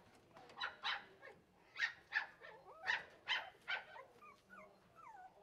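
Maltese x Shih-tzu puppies yapping: about seven short, high yips in the first four seconds, with thin wavering whimpers between and after them.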